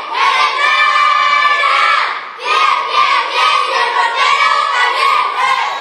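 A group of young voices singing a chant together in unison, loud and continuous, with brief breaks between phrases.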